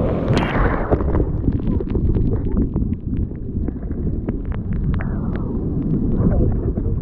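Surf breaking and foaming over a camera held at the waterline. The water is heard muffled as a dense, churning wash with many short crackles of bursting spray and bubbles.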